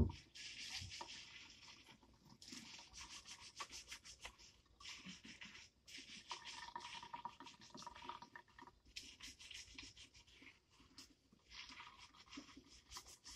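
A click, then hands scrubbing and working lather through wet, shampooed hair: a faint, irregular rubbing in short strokes with pauses between them.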